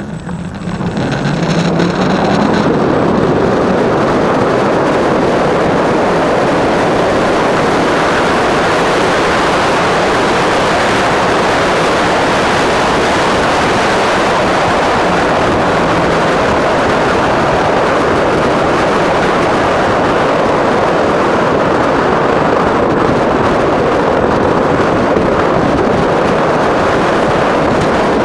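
Wind rushing over the microphone of an electric bike ridden fast on a road, with tyre noise. It swells over the first two seconds as the bike speeds up, a low tone climbing in pitch, then holds steady and loud.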